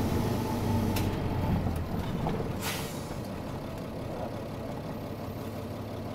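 Heard from inside the cabin, a Nissan Diesel Space Runner bus's diesel engine lets its note drop about two seconds in as the bus slows. Short hisses of compressed air come at about one and three seconds in, and then it settles to a low steady running sound.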